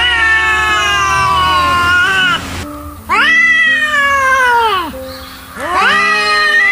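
Angry cat yowling: three long, drawn-out yowls about two seconds each, each rising at the start and then sliding slowly down in pitch, the last still going at the end. Faint steady low notes of background music sit under the second half.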